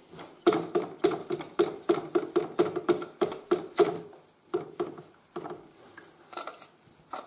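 Paintbrush bristles scrubbing a plastic toilet-cistern valve in hydrochloric acid, working off the loosened limescale. Quick strokes come about four or five a second for the first few seconds, then slow to sparser, fainter dabs near the end.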